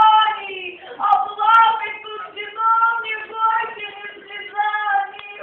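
A high woman's voice singing a solo line of short held notes.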